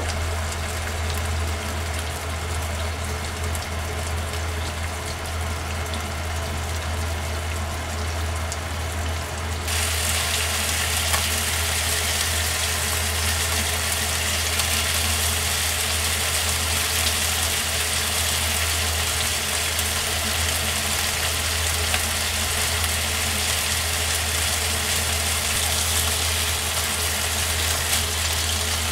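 Pork chops sizzling in olive oil with sliced garlic in a frying pan, over a steady low hum. The sizzle's hiss grows louder suddenly about ten seconds in and stays up.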